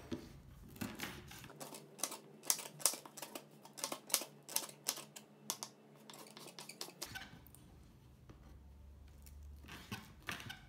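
Knife cutting through a fresh pineapple slice on a wooden cutting board: a quick run of sharp knocks and snips as the blade passes through the peel and flesh and meets the board. The cuts thin out after about seven seconds, with a few more near the end.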